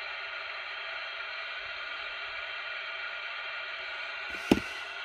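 Steady hiss from an FM CB radio receiver left open on an empty channel, with no station answering the call. A single sharp knock about four and a half seconds in.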